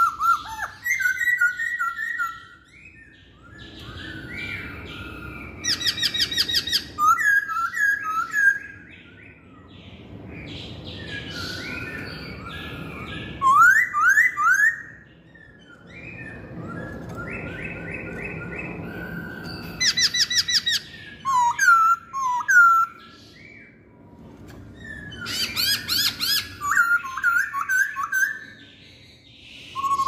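Caged black-throated laughingthrush (poksay hongkong) singing: loud, varied whistled phrases with sliding notes and quick high trills, in bursts a few seconds long separated by short pauses.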